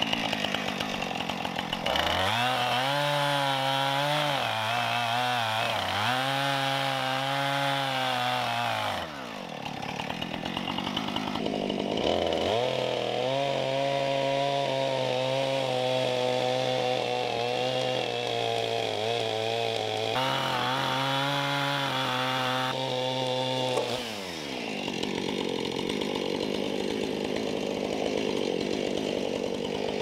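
Two-stroke chainsaw limbing a felled poplar. It revs to full throttle twice, with its pitch sagging briefly as it cuts through branches, and drops back to a low idle between the runs and near the end.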